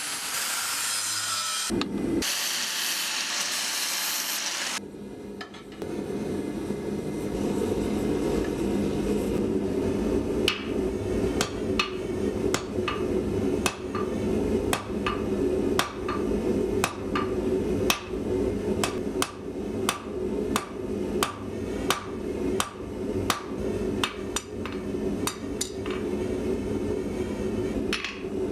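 Blacksmith's hammer striking hot steel on an anvil in a steady rhythm, between one and two blows a second, with the forge running underneath as a steady hum. It opens with a loud hiss that lasts a few seconds.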